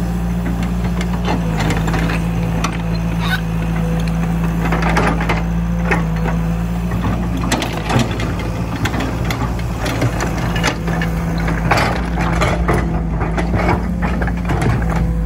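Caterpillar E120B excavator's diesel engine running steadily while the bucket pushes a thrown steel track chain back toward the undercarriage, with irregular metallic clanks and knocks from the track links.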